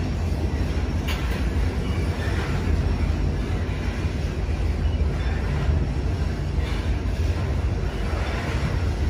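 Two BNSF freight trains, an intermodal and a coal train, rolling past each other on adjacent tracks: a steady low rumble of steel wheels on rail, with one sharp click about a second in.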